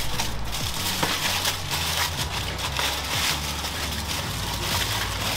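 Aluminium foil being crinkled and folded around a plate of crispy bacon, a continuous rustling crackle as it is wrapped.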